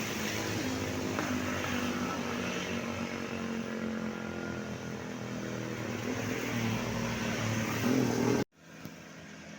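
Road traffic: vehicle engines running and passing with tyre noise, growing louder near the end and then cutting off abruptly.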